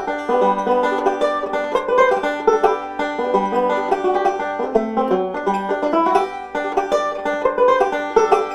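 Five-string resonator banjo fingerpicked with three fingerpicks, playing a quick, continuous rolling pattern of bright plucked notes in bluegrass style.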